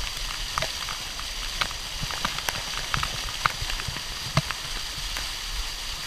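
Small waterfall pouring close by: a steady rush of falling water with irregular sharp taps of drops and splashes striking the action camera.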